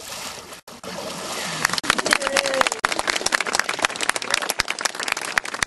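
A splash of lake water as a person is plunged under for baptism by immersion, then a small crowd clapping, many sharp claps over the last few seconds.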